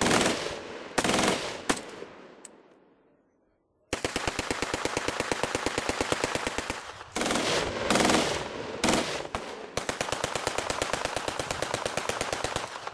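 Fully automatic machine-gun fire: a few loud bursts, a sudden break, then a long run of rapid, evenly spaced shots lasting about three seconds. More loud bursts follow, then another long rapid run that stops just before the end.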